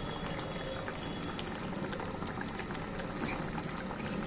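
Curry gravy with lentil fritters and potatoes simmering in a kadai: a steady bubbling with small pops.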